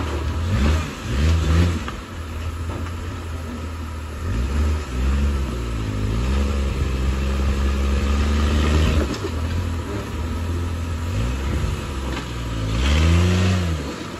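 Jeep Wrangler's engine revving up and down again and again as it crawls up a rock ledge. A longer steady pull comes in the middle, and a louder rev comes near the end.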